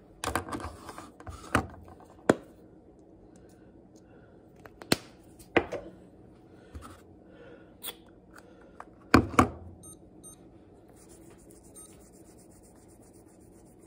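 Small plastic clicks and handling noise from a finger-pricking lancing device being opened and loaded for a blood sugar check: about seven sharp clicks spread out, the loudest a quick double click about nine seconds in.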